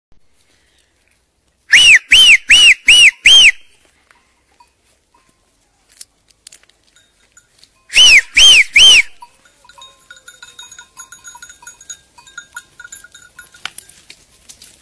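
Loud finger whistling calling a flock of sheep and goats: five short blasts in quick succession, each rising and falling in pitch, then three more a few seconds later. Faint scattered sounds follow.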